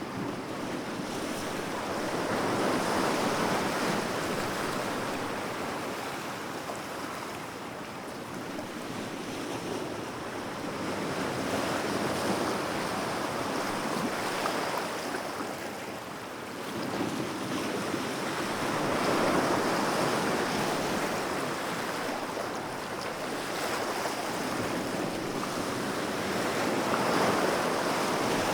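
Sea waves, an even rush of water that swells and fades in slow surges, four of them about eight seconds apart.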